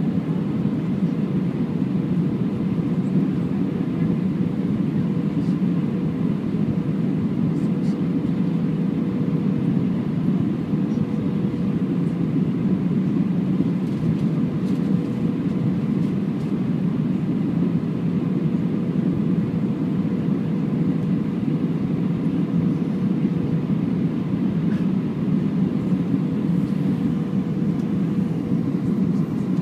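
Airbus A320-214 cabin noise on approach: its CFM56 engines and the airflow past the fuselage make a steady low roar, with a faint steady hum running through it.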